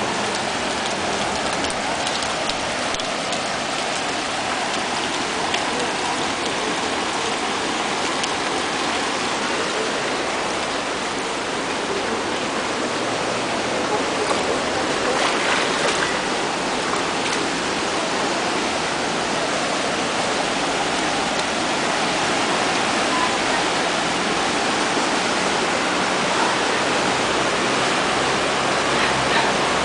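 Swollen river in flood and muddy floodwater rushing, with rain falling: a steady noise of water that grows a little louder near the end.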